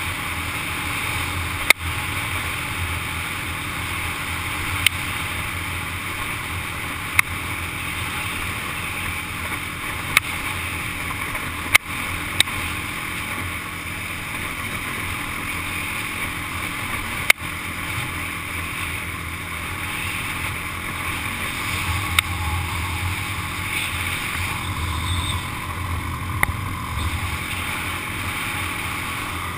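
Honda ATV engine running steadily while riding, heard through a GoPro camera, with wind noise and about nine sharp clicks or knocks scattered through.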